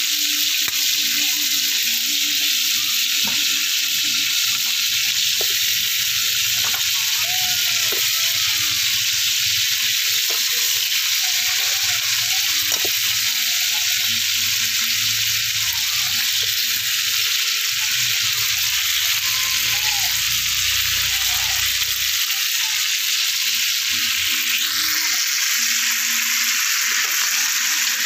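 Blue swimmer crabs sizzling in a hot metal wok over a wood fire: a steady, even hiss.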